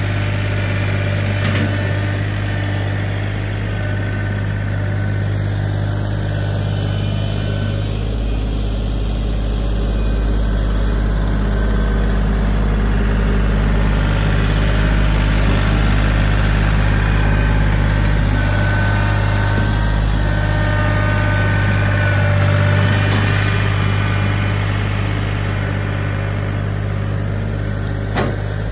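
John Deere 3025E compact tractor's three-cylinder diesel engine running steadily.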